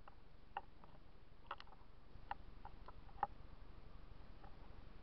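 Faint, irregularly spaced light ticks and clicks, several in a few seconds, over a low steady background rumble.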